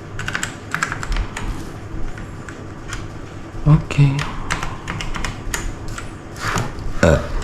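Computer keyboard keys being typed on: a run of irregular clacking keystrokes.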